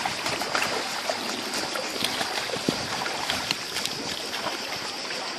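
Shallow seawater lapping at a rocky shore and splashing around people wading: a steady wash dotted with many small splashes and trickles.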